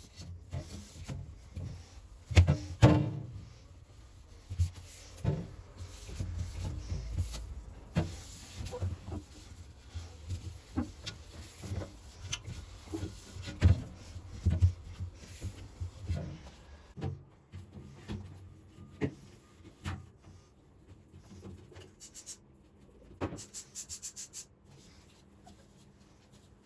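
Refrigerator contents and containers being handled and set down: irregular knocks, rubbing and clatter, with one sharper knock that rings briefly about two and a half seconds in. A quick run of crackly clicks comes near the end.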